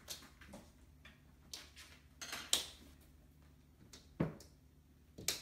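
A cat pawing at a glass-paned door, making irregular light taps and knocks on the glass and frame, with a duller knock about four seconds in.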